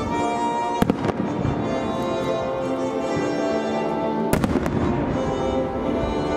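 Aerial fireworks shells bursting over music with held notes: a sharp bang about a second in, then a heavier cluster of bangs and crackle a little past four seconds.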